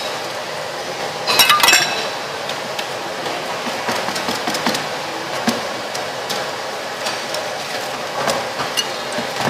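Metal clinks of a wire noodle basket and ladle knocking against a large steel stockpot, with a quick cluster of sharp clinks about a second and a half in and scattered lighter taps after, over a steady hiss.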